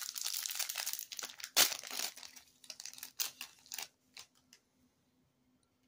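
Foil wrapper of a trading card pack crinkling as it is torn open and handled, with one sharp, loud crackle about one and a half seconds in. The crinkles thin out and stop a little after four seconds.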